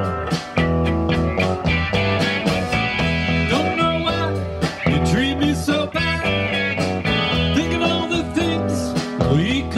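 Live classic rock and blues band playing an instrumental passage: electric guitars over a steady drum beat, with the lead guitar bending notes.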